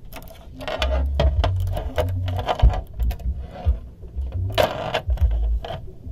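A steel-and-gold Rolex Submariner Date 116613 being handled on a tabletop: its Oyster bracelet links clink and rattle as the watch is turned over, with low thuds as it touches down. Near the end come quick clicks from the bezel being turned by the fingertips.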